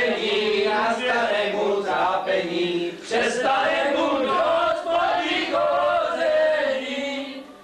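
A group of people singing together in phrases, with a short break about three seconds in. The singing stops just before the end.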